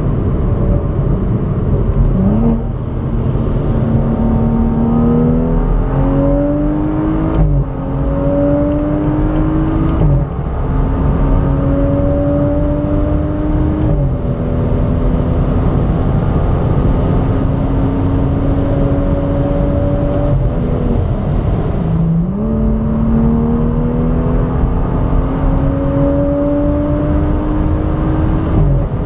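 BMW M135i's tuned N55 turbocharged straight-six with downpipe, catless exhaust and custom exhaust, accelerating at full throttle as heard from inside the cabin. The engine note climbs steadily through each gear and falls back sharply at each of several upshifts. About two-thirds in there is a short break, and then a second pull starts climbing from high revs.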